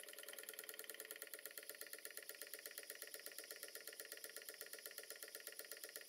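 Small oscillating-cylinder model steam engine running on compressed air, its exhaust puffing in a fast, even rhythm. The sound is faint.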